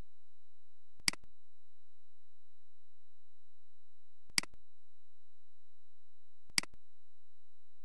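Three sharp mouse clicks, about a second in, a little past four seconds and at six and a half seconds, over a steady electrical hum and a faint high-pitched whine.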